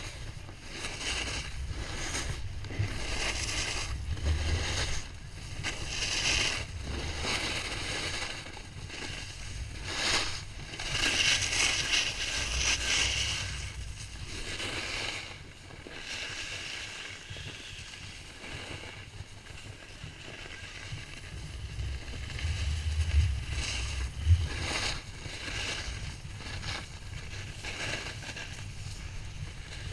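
Snowboard sliding and scraping over packed snow in repeated swells, with wind buffeting the microphone.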